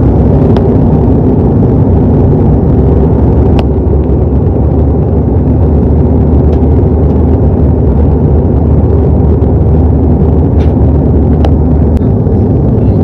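Airliner cabin noise in flight: a loud, steady low rumble of jet engines and rushing air, with a few faint ticks.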